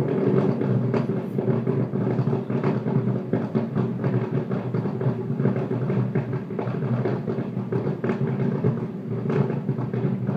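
Fireworks display heard from a distance: many rapid, overlapping booms and crackles of bursting shells merging into a steady rumble.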